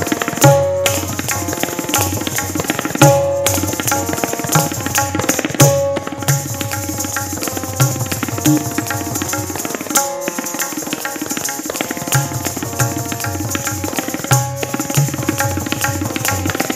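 Kathak accompaniment: tabla playing in jhaptaal, the ten-beat cycle, under a repeating melodic refrain (lehra), with dense high jingling of the dancer's ankle bells and foot strikes on the stage.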